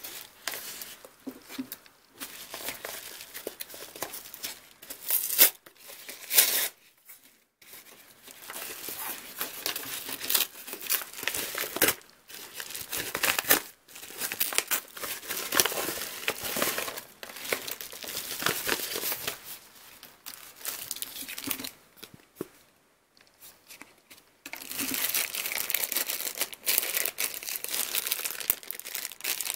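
Kraft-paper mailer envelope being cut with scissors and torn open, with irregular paper rustling and tearing and a few louder sharp bursts. Near the end comes steady crinkling of a clear plastic bag being handled.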